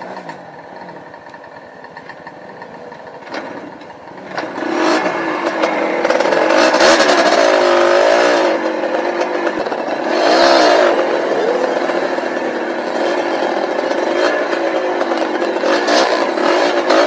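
Yamaha DT 125 two-stroke dirt bike engine, running low and quiet for the first few seconds, then revving up and down under throttle from about four seconds in, with two strong climbs in pitch.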